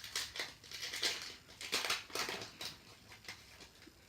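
Foil wrapper of a Pokémon booster pack crinkling and tearing as it is opened by hand, in a few short rustling bursts.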